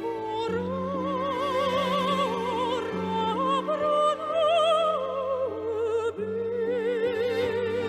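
Classical, opera-style singing with a wide vibrato on long held notes, over sustained low accompaniment chords that change every few seconds.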